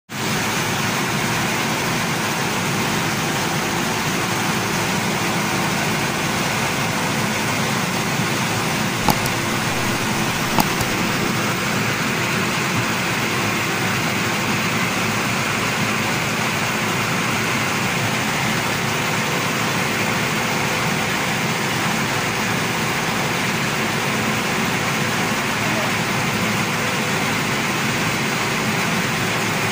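Belt-driven rice mill running steadily while milling palay into rice: a constant, dense mechanical din of motor, belts and grain running through the huller. Two brief knocks stand out around the middle.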